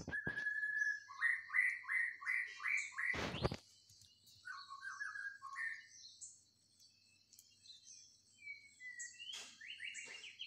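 Birds calling: runs of short, rising chirps repeated several times a second, with fainter high twittering behind them. A brief noisy rustle comes about three seconds in.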